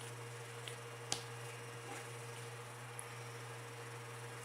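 Steady low hum of an electric fan, with a few faint soft clicks as slime is stretched into a bubble.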